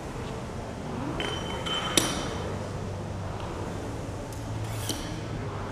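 Small iron change plates clinking as a barbell is loaded: a short metallic ring, then a sharp clink about two seconds in, and another clink near the end.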